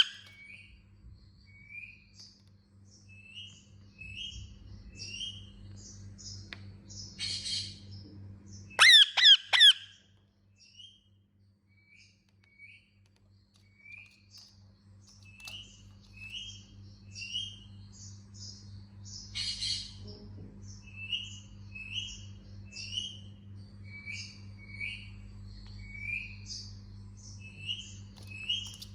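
Indian ringneck parakeet chirping: short high chirps, a few a second, with a brief pause partway through. About nine seconds in there is a burst of four loud, harsh squawks, and there are two raspy noisy calls, one shortly before the squawks and one near the middle.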